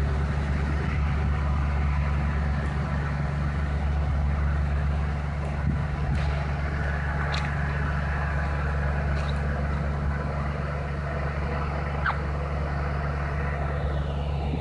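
A steady low engine drone at an even level throughout, with a few faint ticks.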